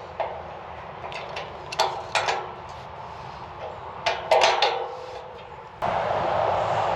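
A series of sharp metallic clanks and knocks, a few with a brief ringing, as gate hardware is handled and tried. About six seconds in, a steady loud rushing noise starts abruptly and keeps going.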